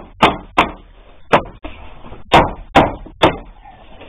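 A hand knocking a wooden strip into place along the edge of a door panel: six sharp knocks at uneven spacing, each ringing briefly in the wood, as the piece is seated in its groove.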